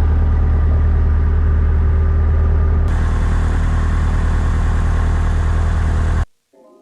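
Engine of a small Piper Colt light airplane running steadily with a strong low drone. The sound turns brighter and hissier about three seconds in and cuts off abruptly near the end.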